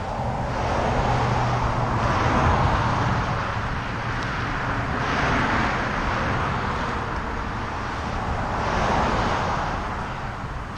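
Road traffic passing on a highway: tyre and engine noise from passing vehicles swells and fades about three times.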